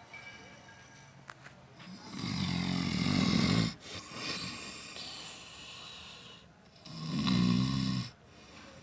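A sleeping man snoring: two long, loud snores, one about two seconds in and one near the end, with a softer breath between them.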